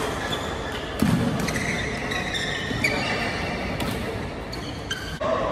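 Badminton rally: sharp racket strikes on the shuttlecock and shoes squeaking on the court floor, with a heavy thud of a player's footwork about a second in.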